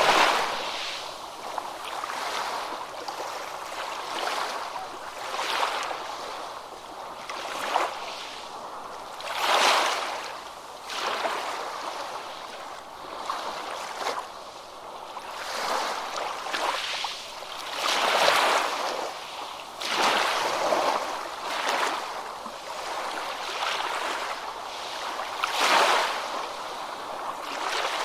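Ocean waves breaking in a series of rushing surges a few seconds apart, with water washing and rippling between them. The biggest breakers come near the start and about ten, eighteen and twenty-six seconds in.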